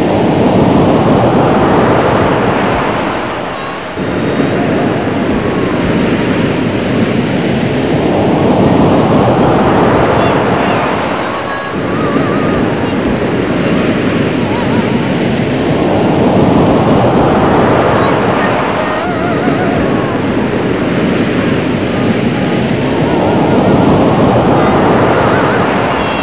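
Rough sea: big waves rushing and breaking, a loud roar that swells and ebbs in long surges several seconds apart.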